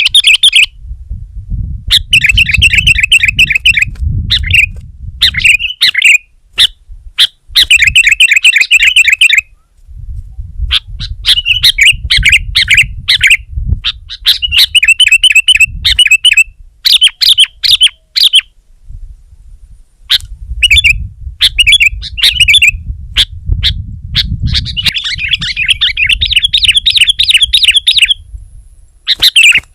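Sooty-headed bulbul (kutilang) singing and chattering vigorously in loud bursts of rapid, repeated notes. The phrases last a second or two and are separated by short pauses.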